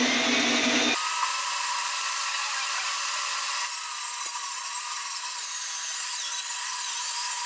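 Power saw running and cutting through a length of ash wood: a loud, steady rasping noise with a faint whine.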